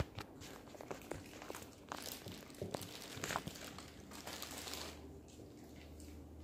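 Faint rustling and crinkling of a cardboard box being handled, with scattered light taps and clicks that are busiest about three seconds in.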